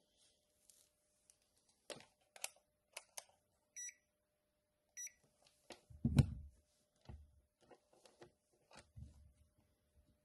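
Two short electronic beeps from a digital multimeter, a little over a second apart, amid light clicks and handling noises of tools and the circuit board, with a dull thump about six seconds in.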